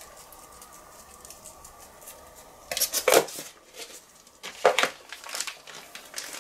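Kitchen things being handled and put down: a plastic tub and utensils clattering onto the countertop and a wooden cutting board, in two bursts of knocks about three and about four and a half seconds in.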